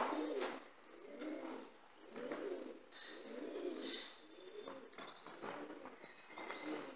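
A pigeon cooing, a low humped coo repeated about once a second, with a couple of short high chirps near the middle.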